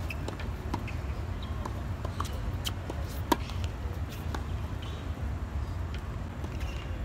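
Tennis balls being struck by rackets and bouncing on a hard court: a scattering of short, sharp pops, the loudest about three seconds in, over a steady low rumble.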